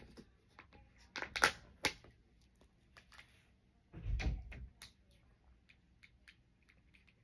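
Plastic fruit cup handled with a metal spoon: scattered clicks and crinkles of the cup and its peeled lid, and the spoon tapping and scraping inside the cup, with a dull thump about four seconds in.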